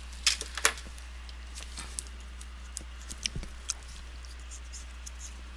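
Plastic clicks and taps from the laptop's screen bezel as gloved hands press and handle it: two sharp clicks near the start, then a scatter of lighter clicks.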